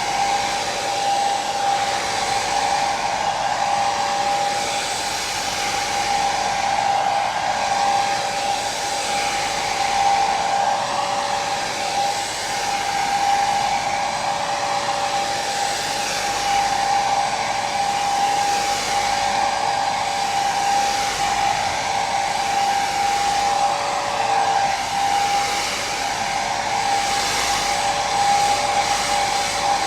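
Hair dryer running steadily: a continuous rush of blown air with a steady motor whine, slowly swelling and easing a little.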